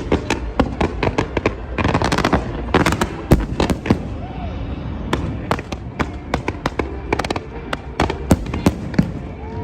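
Fireworks going off in quick succession: a dense run of sharp bangs and crackles, which thins out briefly around the middle.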